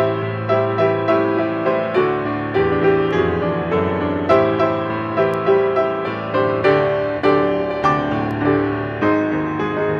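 Steinway grand piano played solo: a lively improvised arrangement with chords struck on a steady beat, about two a second.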